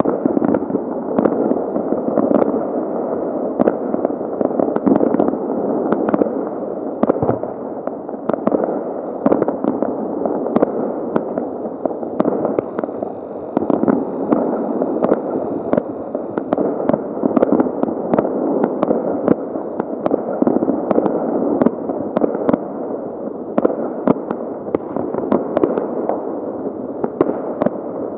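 Fireworks and firecrackers going off all around, many at once: a continuous rumble of overlapping distant bangs with frequent sharper cracks.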